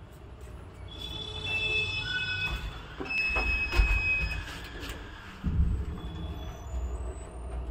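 Elevator doors sliding, with high, steady metallic squealing tones for a few seconds. Then a low rumble of the lift starts about five and a half seconds in.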